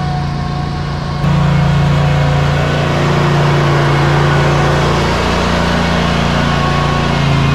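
Ready-mix concrete truck's diesel engine running steadily while driving, heard from the cab, a low drone that turns louder abruptly a little over a second in.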